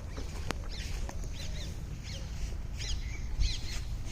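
Small birds chirping in short, high, downward-sweeping notes, repeated several times over a steady low rumble, with a single sharp click about half a second in.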